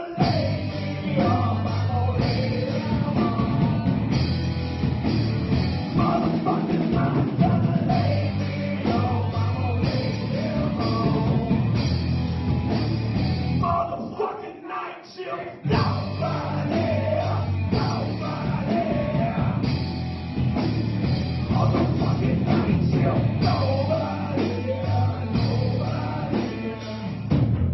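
Rock band playing: electric guitars, bass and drums, with a singer. The music drops away briefly about halfway through, then comes back in.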